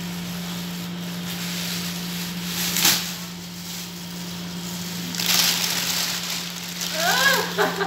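Plastic carrier bags rustling and crinkling as they are handled, with a sharp crackle about three seconds in and a louder stretch of rustling about five seconds in, over a steady low hum.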